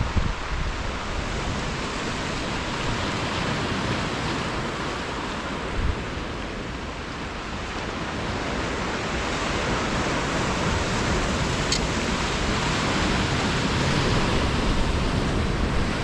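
Strong gusting wind rushing over the microphone with a low rumble, mixed with the steady wash of sea surf.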